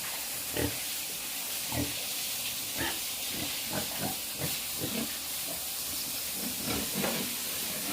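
Pigs grunting, many short grunts in quick, irregular succession over a steady hiss.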